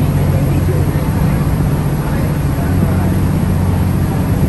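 Sightseeing ferry's engine droning steadily, a constant low hum heard aboard the boat.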